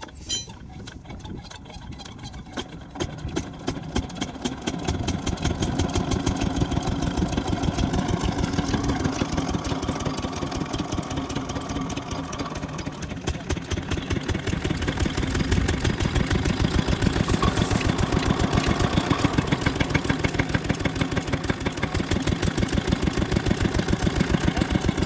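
Stationary single-cylinder diesel engine of a borewell pump set, catching and picking up speed over the first few seconds, then running steadily with an even, rapid chug. It drives the water pump by a belt.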